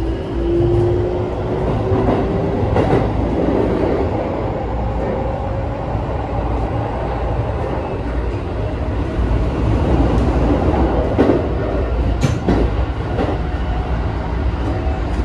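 Keikyu 1000 series train running, heard inside the car: the Mitsubishi full-SiC VVVF inverter and traction motors give a thin whine that rises in pitch over the first few seconds as the train gains speed. Under it is steady wheel rumble, with a few sharp clicks from rail joints later on.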